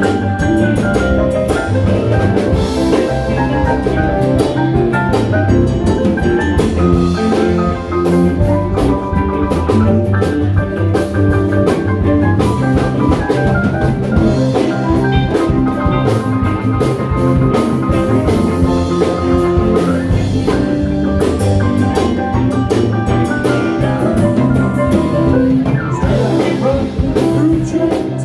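A ragtime band playing live, an instrumental passage with drum kit and guitar.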